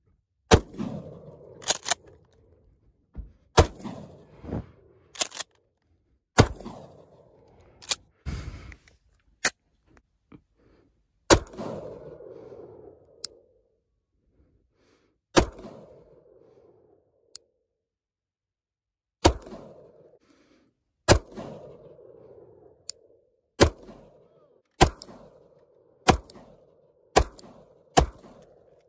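A string of single gunshots from a pump-action shotgun and then a semi-automatic pistol, fired one at a time with gaps of about one to four seconds. Each shot is followed by a short echo.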